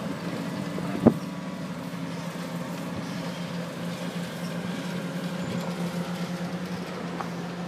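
Heavy diesel engines of a tracked excavator and a Mercedes-Benz Actros dump truck running steadily, with one sharp knock about a second in.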